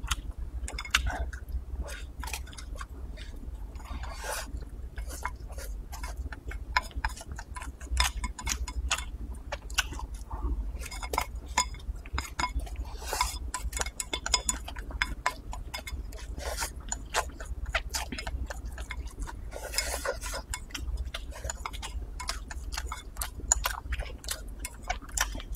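Wooden chopsticks clicking and scraping against a ceramic rice bowl as rice is shoveled in, with chewing between the clicks. A steady low hum runs underneath.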